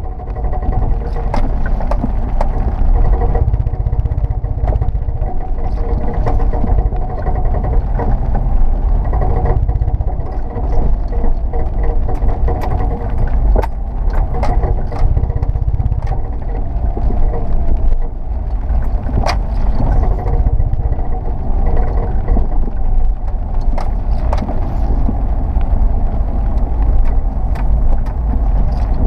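1999 Subaru Forester running under load, with a low rumble and sharp mechanical clunks at irregular intervals from the driveline. The clunking is tied to wheel rotation and persists after both front CV joints were replaced; its cause is unknown.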